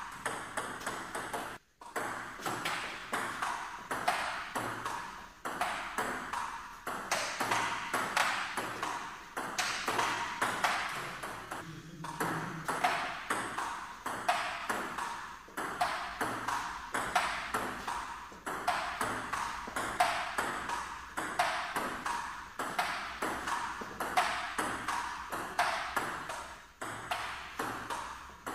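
Table tennis rally: the celluloid/plastic ball clicking in a quick, even series off the table and the rubber-faced bats, one of them faced with antispin rubber. A moment's silence breaks it once near the start.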